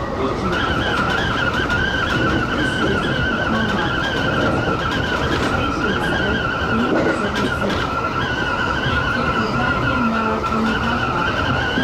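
Kintetsu express train running, its steel wheels squealing steadily: a high, wavering squeal held the whole time over the rumble of the running gear.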